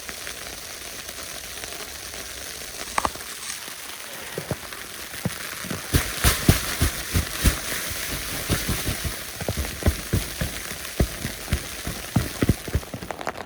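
Rain and sleet falling, a steady hiss with scattered sharp taps of drops and ice pellets striking, which grow denser about six seconds in: snow changing over to rain or sleet.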